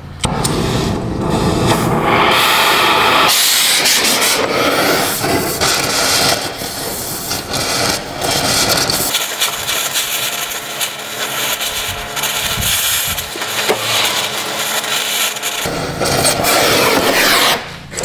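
Gas torch flame hissing steadily as it heats a rusted exhaust Y-pipe flange to free seized studs. The sound shifts abruptly a few times and loses its low end from about halfway through until near the end.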